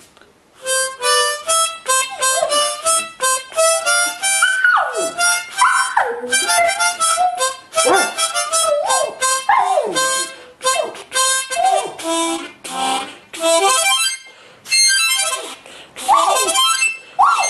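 Harmonica playing short notes and chords, with a Jack Russell terrier howling and yelping along in high cries that slide down in pitch. The harmonica starts about a second in and pauses briefly near the end.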